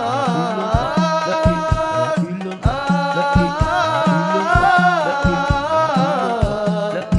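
Sholawat music in praise of the Prophet: a singer holding long, wavering notes over irregular drum beats and a steady low accompaniment.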